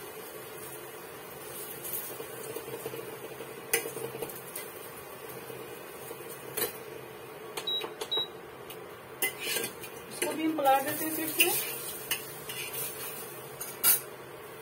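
Induction cooktop humming steadily, with two short high beeps a little past halfway as its touch buttons are pressed to change the setting. Scattered sharp clicks and clinks of utensils against the pan and a steel bowl come and go throughout.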